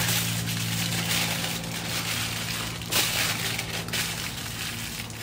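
Aluminium foil being pulled off and crumpled by hand, a continuous crinkling with a few sharper crackles, over a steady low hum.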